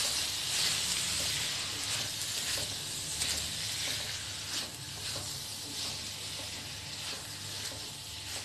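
Soya chunks frying in masala in a kadhai, a steady sizzle, while a spatula stirs them through with occasional soft scraping strokes.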